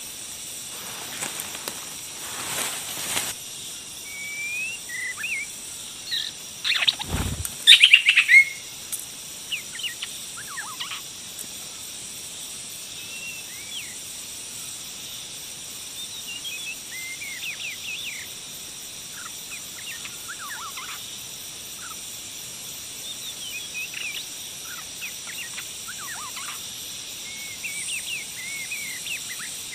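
White-rumped shama giving short chirps and falling call notes, scattered through a lure recording, over a steady high hiss. About seven seconds in there is a low thump, then the loudest moment: a brief harsh burst of calls.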